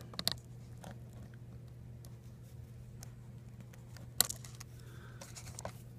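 Small, sharp plastic clicks and scrapes from a pick or tweezers working the key retainer clip under a ThinkPad T440s B key, as the clip is pried out for refitting. The loudest click comes about four seconds in.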